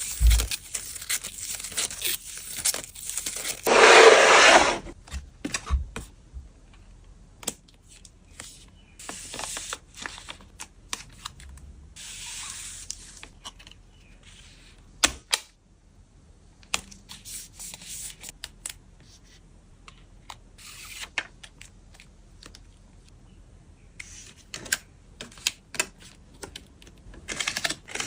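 Photocards and plastic packaging being handled for packing: scattered taps and clicks with rustling and crinkling. A loud tearing sound comes about four seconds in, and a shorter one around twelve seconds.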